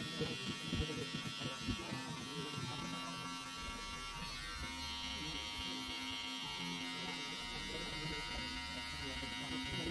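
Cordless metal hair clipper running steadily with an even buzz as it cuts short hair, with a few soft knocks in the first two seconds.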